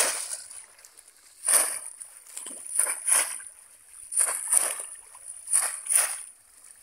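Conical bamboo polo fish traps plunged down into shallow water again and again, a splash with each plunge, about nine in all and often two close together.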